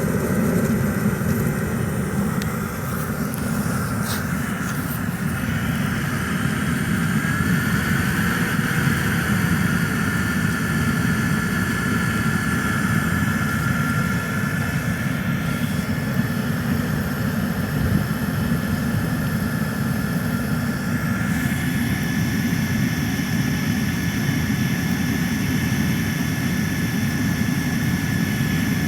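Home-built pressure-jet diesel burner running: a steady low roar of blower air and flame, with a thin high whine from the small electric motors, whose pitch rises slightly about seven seconds in.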